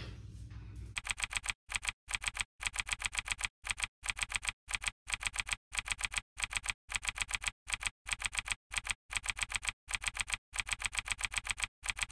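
Typewriter keystroke sound effect: rapid, evenly spaced clicks in short runs with brief silent gaps between them, starting about a second in.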